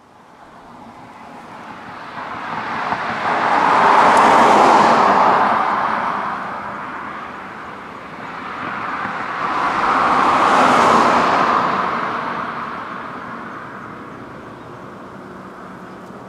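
Two vehicles passing close by about six seconds apart, each swelling up and fading away, over the steady distant jet rumble of a Boeing 747-8F on its takeoff roll.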